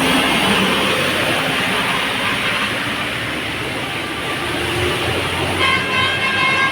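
Road traffic with a bus going past, then about six seconds in a bus's multi-trumpet telolet horn starts sounding several steady notes together.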